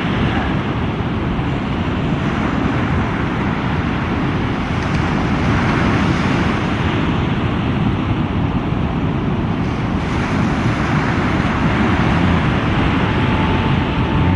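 Steady rush of breaking surf and wind on the microphone, with a tractor engine running under it as it pushes a launch boat down the beach into the water.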